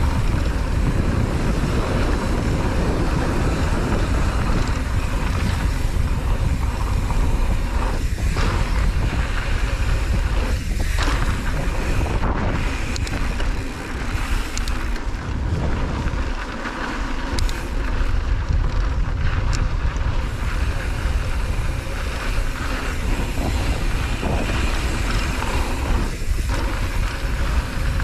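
Wind buffeting the microphone of a mountain bike's helmet or handlebar camera, with knobby tyres rolling over loose dirt during a fast descent. Scattered light clicks and rattles come from the bike.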